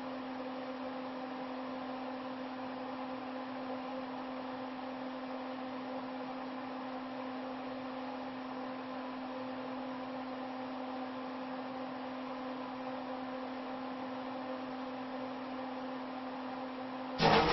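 Steady electrical hum with a low pitched tone while a lithium battery pouch sits under test. Near the end a sudden loud burst of noise breaks in as the battery vents smoke.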